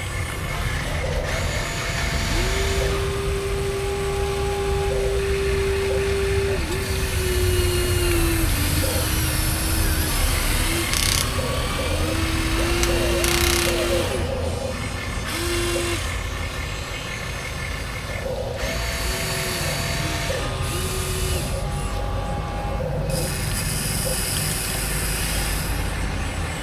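Electric motors and hydraulic pumps of Huina RC excavators and a wheel loader whining as the controls are worked. The whine holds steady pitches, then steps and glides down and up, stopping and starting several times over a constant low rumble.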